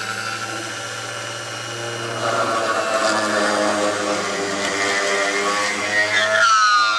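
Bench drill press running, its twist bit boring down through a cork. The cutting grows louder and rougher about two seconds in, and near the end the motor's pitch falls as it slows.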